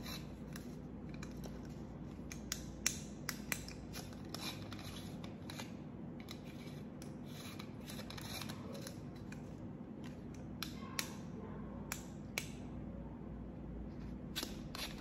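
Scattered light clicks and taps, a few a second at uneven intervals, from close handling of small hard objects, over a steady low hum.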